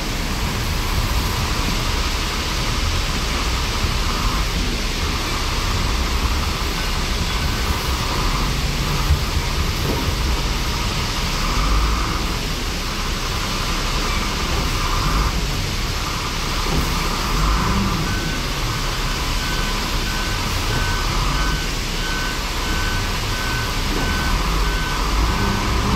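XCMG ZL50GN wheel loader's diesel engine running under load as it lifts and tips its bucket, with a steady whine that breaks off every few seconds. From about two-thirds of the way in, a rapid beeping alarm sounds over it.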